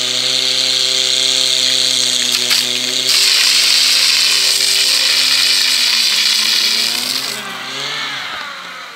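Portable fire pump engine running at high revs, with water jets hissing from two hose nozzles. About two-thirds of the way through, the engine note falls away and the hiss dies down.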